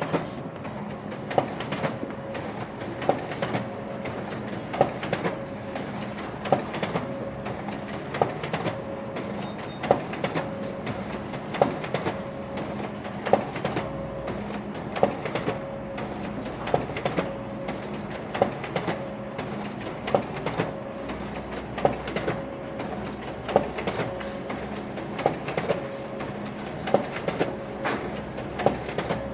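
Office background sound: a steady machine hum with a regular clunk about every one and three-quarter seconds and many small clicks in between.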